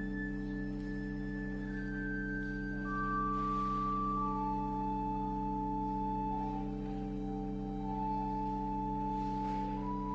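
Church organ playing slowly: a low chord held throughout, under a high melody of long single notes that step downward, then rise again near the end.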